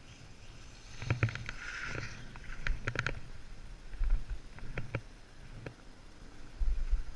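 Edges scraping and hissing over packed snow on a ski piste, with scattered sharp knocks and low rumbling bursts of wind on the microphone around the middle and near the end.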